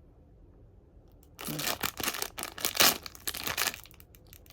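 Blind-box packaging crinkling and tearing in a run of quick rustles, starting about a second and a half in after a short quiet spell.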